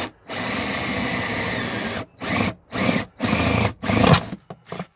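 Electric drill drilling a small pilot hole: one steady run of about a second and a half, then four short bursts on the trigger.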